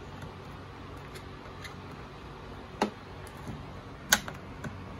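A few sharp clicks and knocks of the Yamaha Kodiak 700 ATV's plastic body panel parts being handled and pulled loose by hand. Two louder clicks come about three and four seconds in, over a steady low hum.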